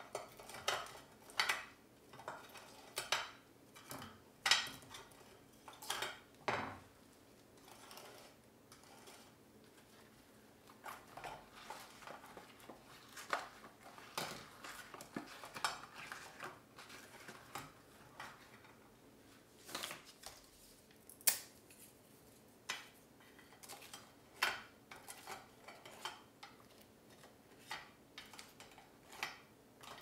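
Kitchenware being handled: irregular clinks, taps and knocks of utensils and dishes, busiest and loudest in the first several seconds, then more spaced out.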